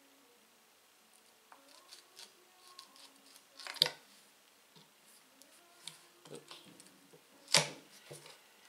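Hard acrylic frame pieces of an Anet A8 3D printer kit being handled: light clicks and rubbing, with two sharp clacks of the plastic parts knocking, about four seconds in and again near the end.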